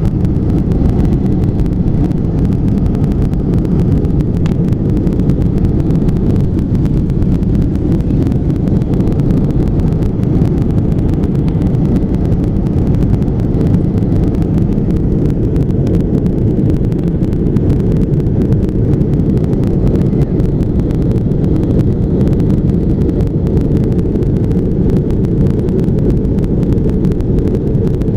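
Airplane in flight, heard from on board: a steady, loud low drone of engine and airflow that does not change.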